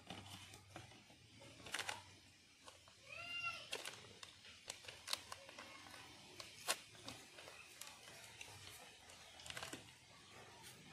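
Crinkling and rustling of a foil snack pouch and its cardboard box as the pouch is handled and worked open, in scattered short crackles and clicks. One short pitched call sounds about three seconds in.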